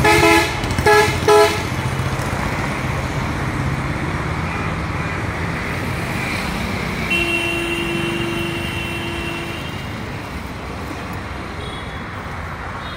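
Steady road traffic running by, with vehicle horns: three short toots in the first second and a half, then one longer, steady horn note in the middle.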